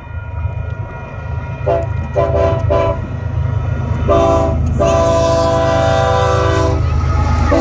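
Air horn of a BNSF freight train's lead diesel locomotive sounding for a grade crossing as it approaches: three short blasts about two seconds in, then a short blast and a long one in the second half. Underneath, the low rumble of the locomotives grows louder as they near.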